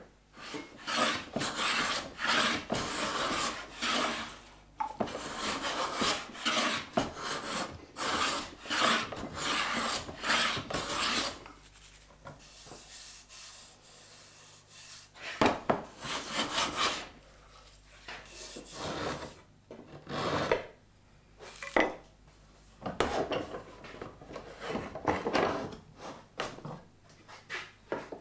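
Hand plane shaving a wooden board, a rapid run of scraping strokes for about the first eleven seconds, a short lull, then more strokes in spurts.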